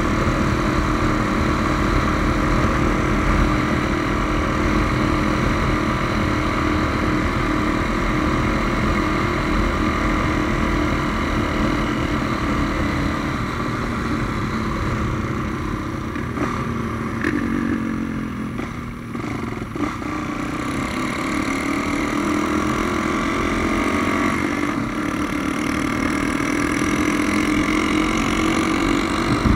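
Modified Honda Tornado single-cylinder motorcycle engine, bored out to 350 cc, running under way. A little under halfway through the engine note falls as it slows, then climbs again a few seconds later as it picks up speed.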